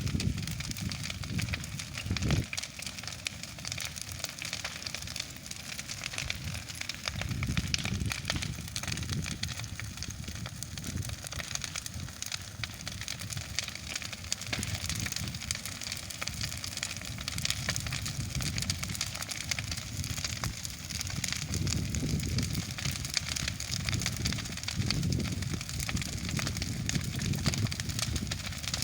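Bonfire burning, a dense run of pops and crackles over a low rumble that swells and fades, with one louder pop about two seconds in.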